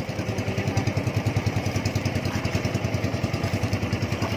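Small fishing boat's engine running steadily, with a fast, even pulsing beat.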